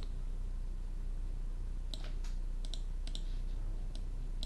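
Sharp clicks of a computer mouse and keyboard: one at the start, then a cluster of about six from two to four seconds in, over a low steady electrical hum.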